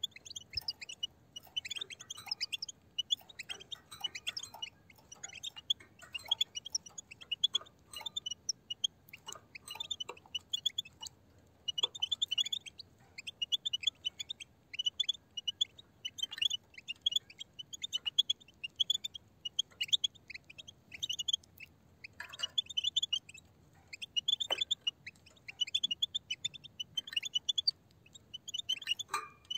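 A flock of European goldfinches twittering: rapid runs of short, high chirps in bursts with brief pauses, with scattered sharp clicks.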